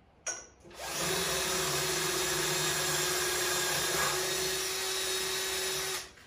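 Bosch cordless drill, mounted in a drill press stand, drilling down into a wooden workbench to make a hole for a mounting bolt. The motor spins up about a second in, runs at a steady speed for about five seconds, and stops abruptly near the end.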